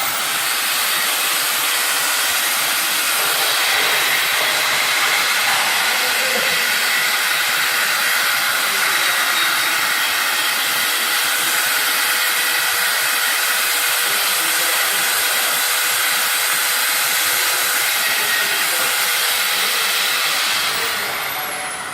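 Compressed air blowing in a loud, steady hiss, stopping near the end as a thin whine falls away.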